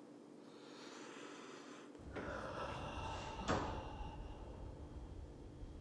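A wooden door being shut and bolted, with one sharp metallic click about three and a half seconds in, over faint room noise.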